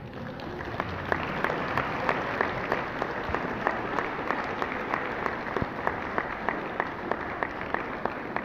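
Audience applauding, with a rhythmic clap about three times a second standing out over the general clapping.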